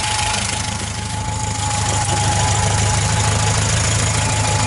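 Moskvich 2140's four-cylinder petrol engine running steadily, with a thin steady whine above it, getting a little louder about two seconds in.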